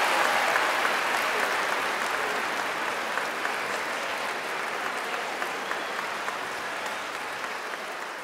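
Audience applauding in a concert hall, the clapping gradually dying down.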